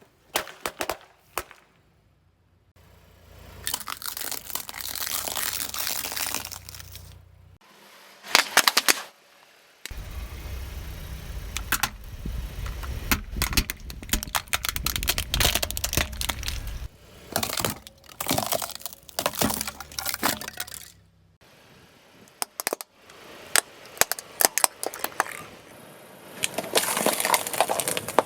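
Objects cracking, crunching and snapping as a car's tyre rolls over and crushes them, in a series of separate takes, with a low rumble under some of them. A cluster of loud sharp bangs comes about eight seconds in.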